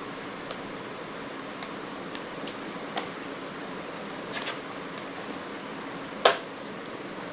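Packaging of a portable hard drive being opened and handled: scattered small clicks and taps, then one sharp, louder snap about six seconds in, over a steady background hiss.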